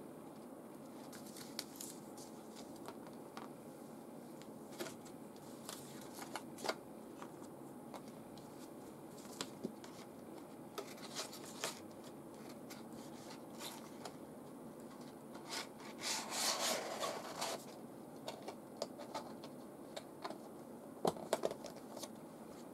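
Paper instruction leaflets and a cardboard-and-plastic product box being handled: scattered light clicks and rustles, with one longer, louder rustle about three-quarters of the way through.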